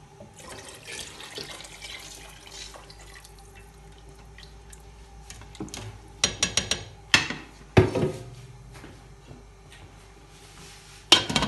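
Water poured into a steel stockpot of hot oil and whole spices, hissing softly, then tongs stirring and clanking against the steel pot a few times, the loudest clank near the end.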